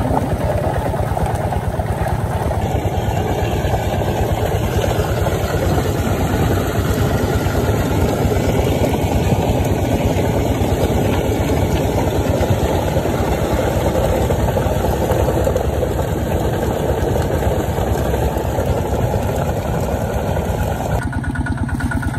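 Small engine driving a water pump, running steadily while it pumps a fish pond dry.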